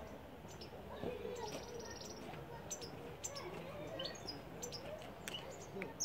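European goldfinch singing: a run of quick, high twittering chirps with a short buzzy trill about a second and a half in.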